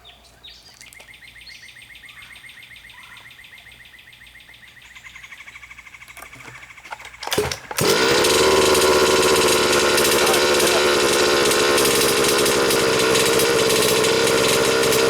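Two-stroke petrol engine of an HPI Baja 5B SS 1/5-scale RC buggy being cold-started: a rapid, quiet ticking and a couple of knocks, then about seven and a half seconds in the engine fires and runs on loud and steady.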